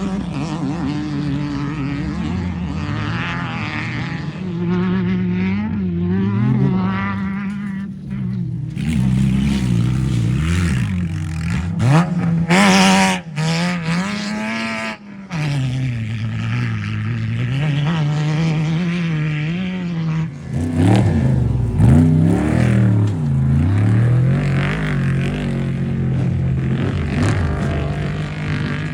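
Off-road race vehicle engines running hard, their pitch rising and falling with revs and gear changes as they pass. The loudest passes come about twelve seconds in and again around twenty-two seconds.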